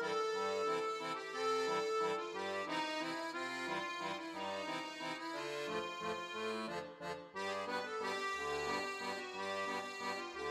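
Background music: a light, playful instrumental tune with a steady melody over a moving bass line.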